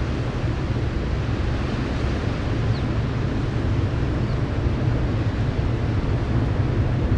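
Steady low rumble of the passing LNG-powered container ship Containerships Polar, its engine and propeller droning, with some wind on the microphone.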